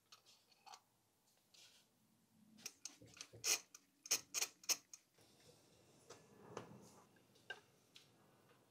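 Socket wrench clicking as spark plugs are fitted into the cylinder head of a MK2 Golf GTI 16-valve engine: a handful of sharp clicks in the middle, then faint handling noise.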